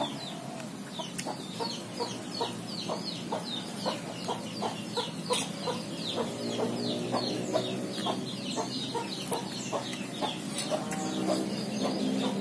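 Chickens clucking, with many quick, high, falling chirps mixed in throughout.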